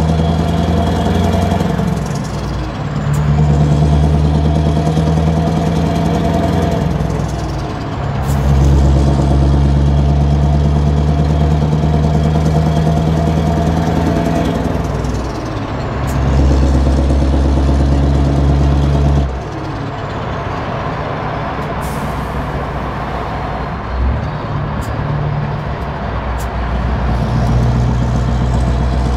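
Scania R500 V8 truck engine heard from inside the cab, pulling steadily in stretches of a few seconds with short dips between them. About two-thirds through it drops to a lighter, quieter run, then picks up again near the end.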